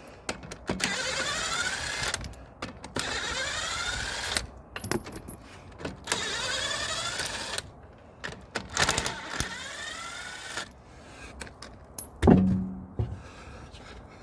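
Impact wrench undoing wheel bolts: five runs, each spinning up with a rising whine, then a heavy thump about twelve seconds in.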